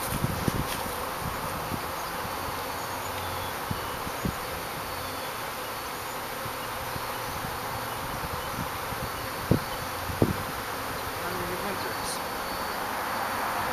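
Honeybees buzzing in the air around a hive as newly arrived package bees are being hived, a steady hum. Two short, dull low thumps come about two-thirds of the way through.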